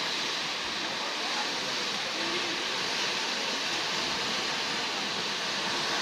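Waterfall dropping from a high cliff into a pool: a steady, even rush of falling water, strongest in the hiss range.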